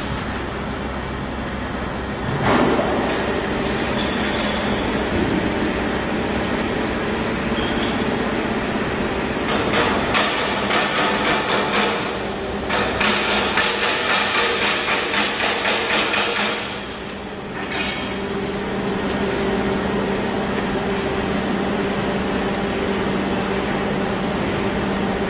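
Steady hum of a tyre debeader's motor running, with a sharp metallic knock about two seconds in. From about ten to sixteen seconds in there is rapid clattering at three or four knocks a second, and one more knock a little later.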